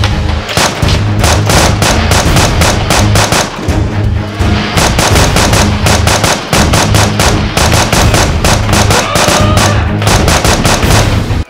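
Rapid automatic gunfire sound effects, about five shots a second, over dramatic background music with a heavy bass line; both cut off abruptly at the end.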